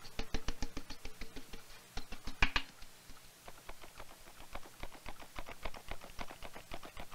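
Tin flour sifter being worked, a fast, even ticking of about seven ticks a second, with a louder clatter about two and a half seconds in.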